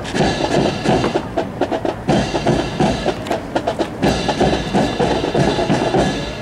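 Drums beating a steady rhythm, with many sharp clicks mixed in.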